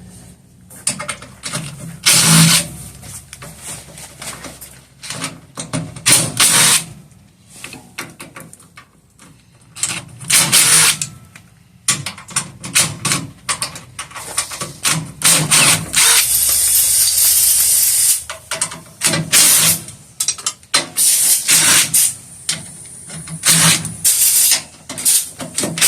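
Power tool running in repeated short bursts, with a longer run about sixteen seconds in, as the fasteners of a welder's wheel are worked off.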